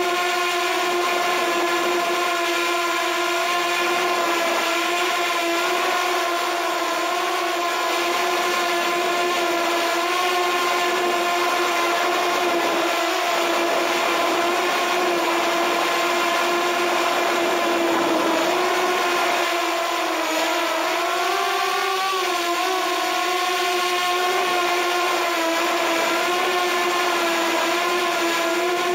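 Walkera F210 3D racing quadcopter's brushless motors and propellers whining at a steady pitch in flight, heard up close from a camera on the frame. The pitch wavers briefly about two-thirds of the way through.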